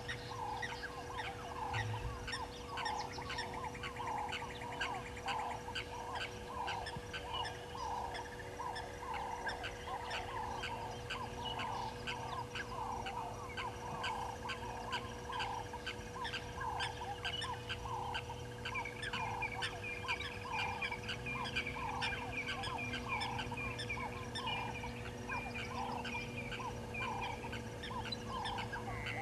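A steady chorus of wild animal calls at a waterhole: one low, croak-like call repeated evenly about one and a half times a second over fast, fine ticking, with a steady hum underneath.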